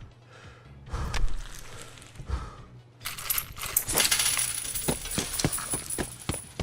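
Coins clinking and dropping: a run of sharp metallic clicks and jingles that starts about three seconds in and goes on to near the end, as cash is paid out at a checkout.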